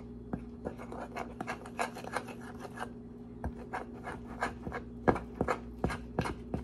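A utensil scraping and tapping against a glass mixing bowl, stirring milk into biscuit mix to make dumpling dough, in quick irregular strokes.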